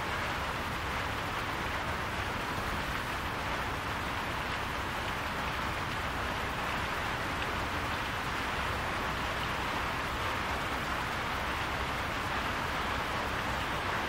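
Steady, even rain falling on a roof.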